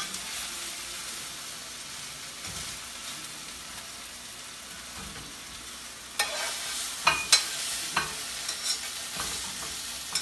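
Chicken pieces sizzling as they brown in a hot skillet, a steady frying hiss. From about six seconds in, a metal slotted spoon clacks and scrapes against the pan as the pieces are stirred and turned.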